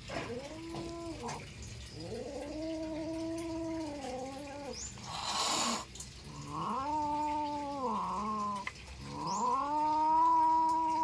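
Two domestic cats fighting: a run of long, drawn-out, wavering yowls, with a short hiss a little over halfway through.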